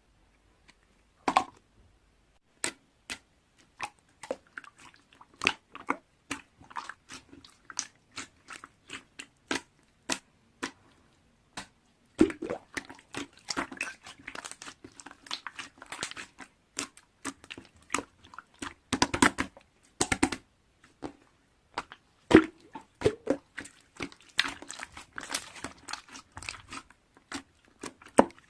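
Close-up crisp crunching and clicking, like someone chewing crunchy food. The clicks are sparse at first and come much thicker through the second half.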